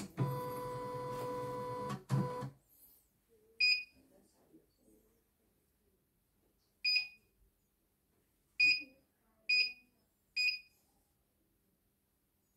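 CNY E900 embroidery machine driving its embroidery arm, a steady motor whine with a low hum for about two and a half seconds, then its control panel giving five short, high electronic beeps as buttons are pressed.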